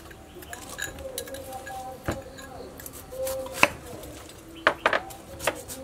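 Food prep knocks and clinks: a kitchen knife striking a cutting board as a pineapple is cut, and a metal spoon against a small bowl while seasoning is spooned, about five separate sharp strikes.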